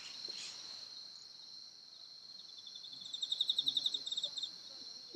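Night insects: a steady high-pitched trill, with a cricket's rapid, evenly pulsed chirping joining about three seconds in for about a second.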